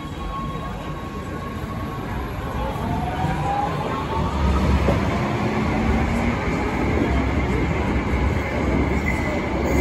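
Cologne high-floor light rail train pulling out of an underground station. Its motors whine, rising in pitch as it speeds up, over a rumble of wheels on rail that grows louder from about three seconds in.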